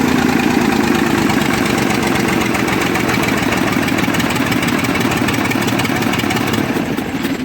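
Scania 111's inline-six diesel engine running steadily, a brutal racket, just after its injection timing was set; it starts to die away right at the end as it is shut off.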